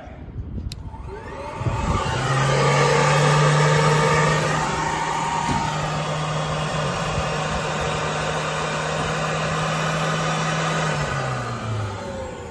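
Corded floor-cleaning machine switched on with a click, its electric motors spinning up with a rising whine and then running steadily with a low hum. Near the end the motors wind down, falling in pitch.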